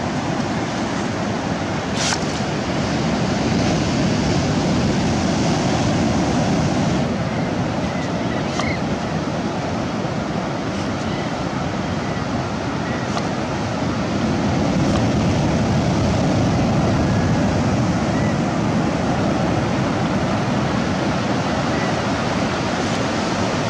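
Ocean surf breaking and washing up a sand beach, a steady rush that swells twice.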